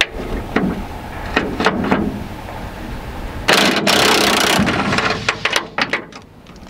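Socket wrench ratcheting on a receiver hitch bolt: scattered clicks, a loud rattling run about a second long a little past the middle, then more quick clicks.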